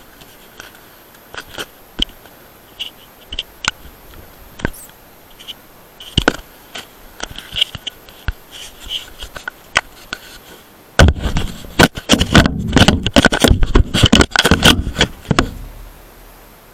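Handling noise on a handheld action camera: scattered knocks and scrapes on the casing, then about four seconds of loud, dense scraping and crackling.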